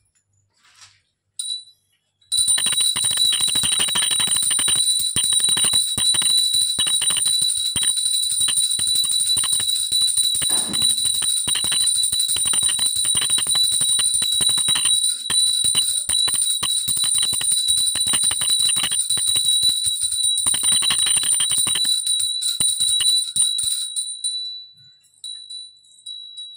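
Puja hand bell (ghanti) rung rapidly and continuously, starting about two seconds in, then stopping after about twenty seconds and ringing out.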